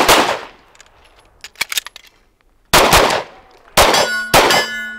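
Pistol shots fired on the draw: one shot, then after a pause a quick string of shots. The last shots hit a steel target, which rings on with a steady metallic tone.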